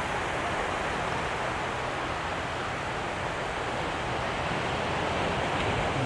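Pacific Ocean surf washing onto the beach as a steady rush of noise, with some wind on the microphone.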